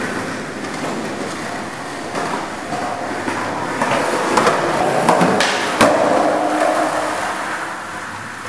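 Skateboard wheels rolling on concrete, with several sharp clacks of the board in the middle.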